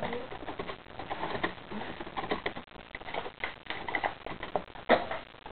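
Irregular light clicks and taps, several a second, with one louder knock about five seconds in.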